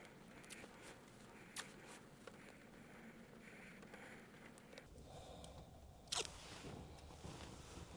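Faint handling noises: small scattered clicks and light rustling, with a sharper click just after six seconds in and a low hum that comes in about five seconds in.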